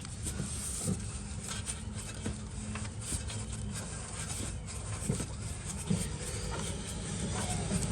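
Hand tools and metal brake-assembly parts being worked: scattered clicks and scraping over a steady low hum.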